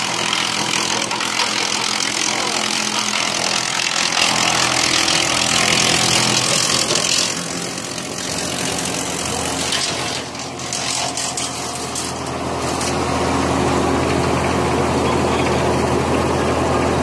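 Wood chipper running steadily, with a dense grinding hiss of branches being chipped for the first several seconds. About thirteen seconds in, the engine note grows lower and louder.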